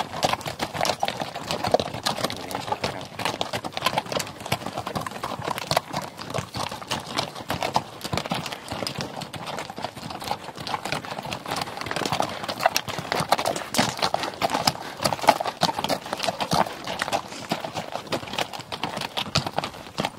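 Hooves of a line of saddled mules walking on a rocky dirt trail, an irregular, overlapping clip-clop of many hoof strikes as the animals pass one after another.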